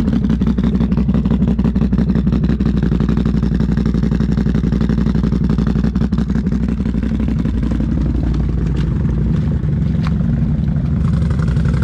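Can-Am Outlander 1000 XMR ATV's V-twin engine running loud and steady, its note shifting about eight seconds in.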